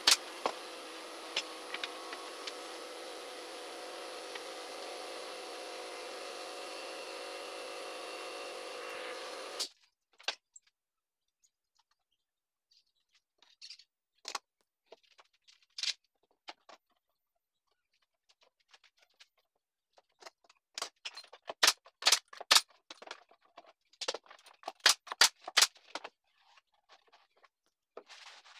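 An air compressor feeding a pneumatic brad nailer runs steadily for about ten seconds, then cuts off suddenly. After that come scattered knocks and clicks of wooden slats being handled and laid on a workbench, with a quick run of sharp clicks about three quarters of the way through.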